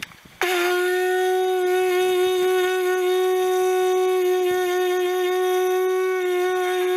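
Homemade conch shell horn blown in one long, steady, loud note, starting about half a second in and held without a break.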